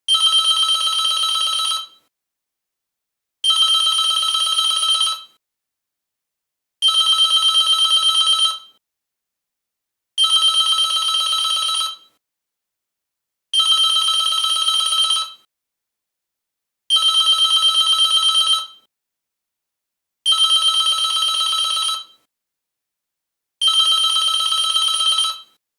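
Door intercom (domofon) ringing with an electronic warbling call tone: eight identical rings of just under two seconds each, about three and a half seconds apart, with silence between them.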